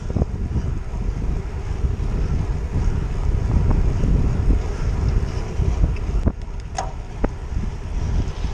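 Wind buffeting the microphone of a camera mounted on a moving road bike: a steady, fluttering low rumble, with a few short sharp clicks about two-thirds of the way through.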